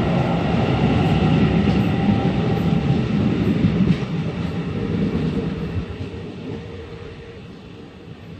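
A train running by on the rails, loud for about the first four seconds, then fading away steadily as it moves off.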